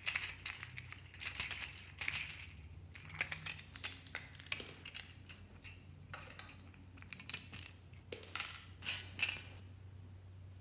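Plastic bobblehead toys with coil-spring bodies being handled and jiggled, their springs and plastic parts rattling and clicking in short jangly bursts, several times over.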